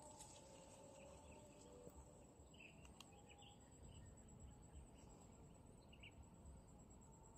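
Near silence: faint outdoor ambience with a steady high-pitched insect trill and a few faint bird chirps.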